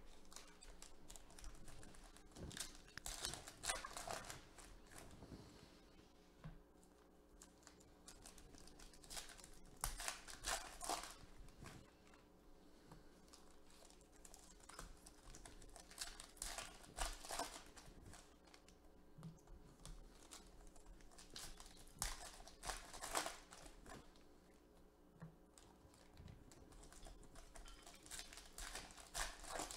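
Foil wrappers of Leaf Draft football card packs being torn open and crinkled by hand, with the cards inside handled and flicked. The crinkling comes in bursts about every six seconds, with quieter handling between.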